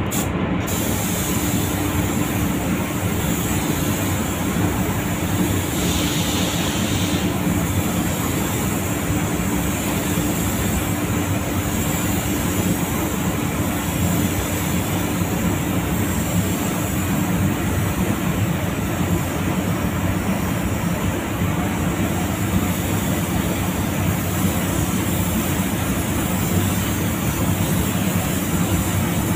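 Compressed-air gravity-feed spray gun hissing steadily as it sprays a coat of metallic grey paint onto a car body, over a steady low hum.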